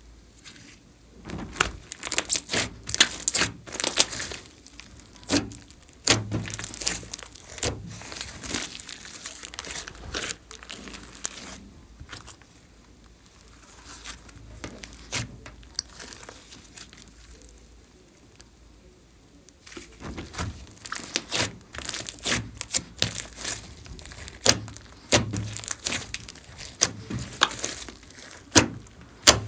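A large glossy mixed slime being stretched, folded and pressed by hand: sticky crackling and clusters of sharp popping clicks as trapped air bursts. The clicking thins out for several seconds in the middle, then picks up again.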